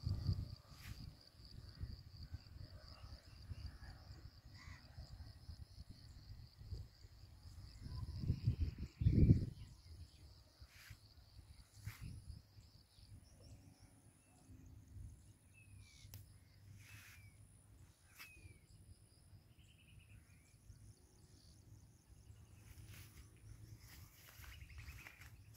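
Outdoor field ambience: wind rumbling on the microphone, with its strongest gust about nine seconds in, over a steady high insect drone that stops about halfway through. Short falling bird chirps come several times in the second half.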